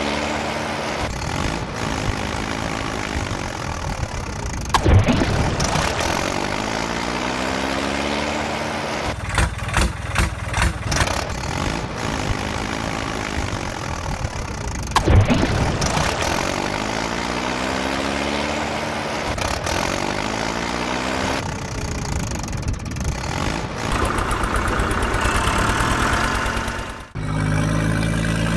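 Engine sound effect laid over toy vehicles: a motor revving up and down in a repeating loop, with loud sharp clanks about five seconds in and again about fifteen seconds in. Near the end it breaks off for a moment and a steadier engine hum takes over.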